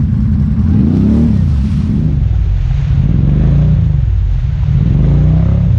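ATV engine revving hard while its tyres spin in a deep mud hole, throwing mud and water. The pitch climbs about a second in, drops back, then climbs again near the end.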